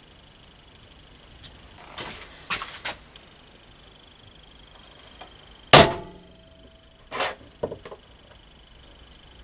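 Hammer striking a centre punch to mark hole positions on a small steel bracket: two sharp metallic strikes with a brief ring about halfway through, then a couple of lighter taps. Before them, softer clatter of tools being handled on the bench.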